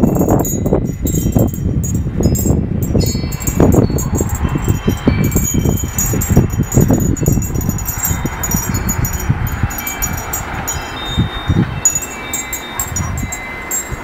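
Japanese furin wind bells and wind chimes ringing as the wind moves them: many light strikes and overlapping high ringing tones, busier in the first half and thinning out later.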